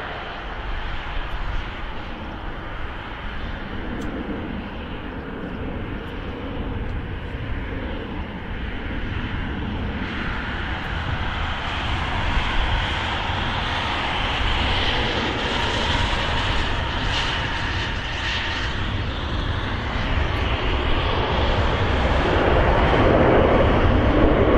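Airliner engines at an airport: a continuous rumble and rush that builds gradually louder, with steady tones emerging near the end.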